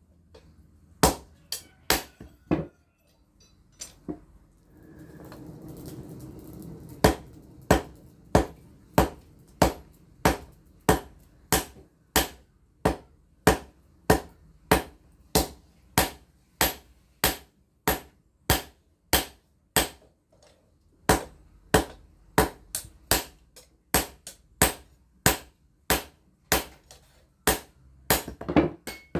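Hand hammer striking a red-hot steel blade, forged from bearing steel, on a small steel anvil: sharp ringing blows in a steady rhythm of about two a second. Near the start the blows pause for about four seconds, and a softer steady rushing noise rises and fades in the gap.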